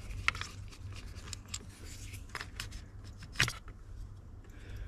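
Scattered small clicks and taps of a hand driver, bolt and plastic sensor being handled as the MAP sensor is unbolted and pulled off the intake manifold, with one sharper click about three and a half seconds in.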